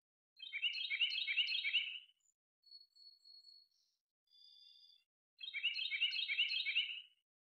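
A songbird singing: two rapid, chattering phrases of about two seconds each, with a few thin, high, steady whistles between them.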